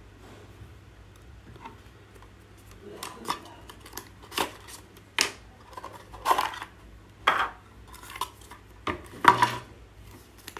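Packaging of a small portable speaker being handled and opened by hand: a series of sharp clicks, knocks and rustles, about one a second from about three seconds in.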